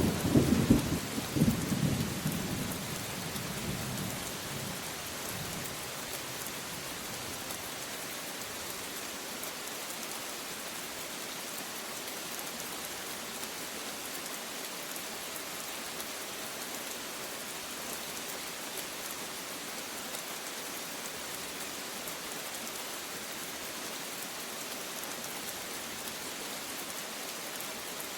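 Steady rain falling, with a roll of thunder rumbling at the start that dies away over the first few seconds, leaving even rain hiss.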